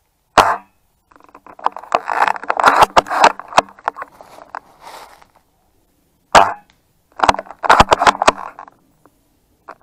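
Two sharp airsoft gun shots about six seconds apart, each followed by a second or two of crackling and clicking, as of movement through dry leaves and twigs.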